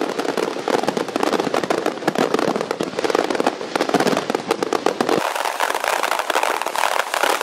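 Fireworks display going off in a dense run of rapid pops and crackles. About five seconds in, the same recording plays sped up, thinner and higher-pitched.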